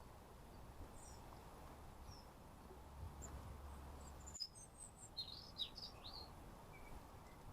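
Faint small garden birds chirping: scattered short high calls, with a quick run of several chirps a little past halfway, over a low steady background rumble.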